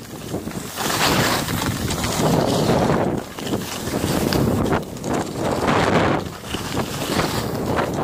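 Wind buffeting the microphone while skiing downhill, mixed with the hiss and scrape of skis on packed snow. The noise swells and eases every second or two.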